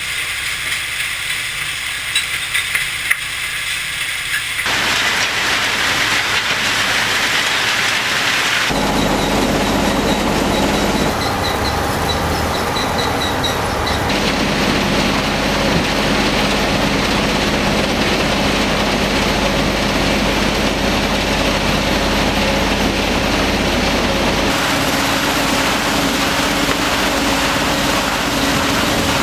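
Aggregate washing and screening plant machinery running, with wet gravel churning through screw washers and over vibrating screens. The steady noise changes abruptly several times, at cuts between different machines.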